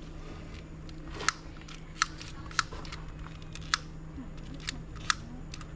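A lighter being clicked over and over without catching: sharp, short clicks at an uneven pace of about two a second, over a faint steady hum.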